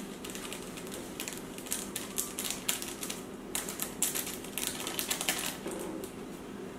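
Small plastic seasoning sachet crinkling and crackling as it is torn open and shaken out over the pot, an irregular run of quick crackles.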